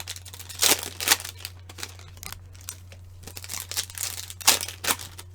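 Upper Deck Synergy hockey card pack wrappers crinkling and crackling as the packs are handled and opened, in irregular rustles with a few sharper crackles about a second in and again near the end.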